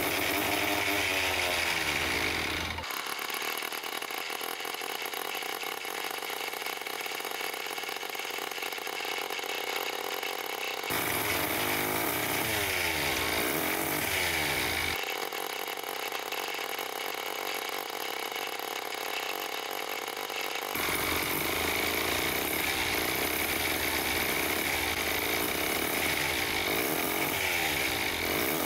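Small see-through Wankel rotary engine running at high revs: a loud, buzzing engine whine whose pitch sweeps up and down. The sound changes abruptly several times, switching between a fuller and a thinner version.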